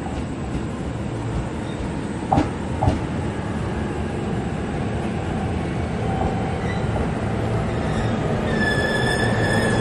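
JR East E531-series electric train pulling into the platform: a steady rumble of wheels and motors that slowly grows louder, with two sharp clacks over rail joints about two and a half seconds in. A high, steady squeal starts near the end as the train brakes to a stop.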